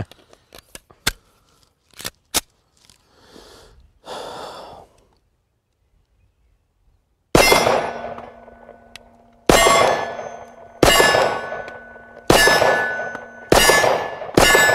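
Kahr CW9 9mm pistol: a few handling clicks as the magazine goes in, then six shots at an unhurried pace, about one to two seconds apart. Each shot is followed by a ringing tone from a steel plate target being hit.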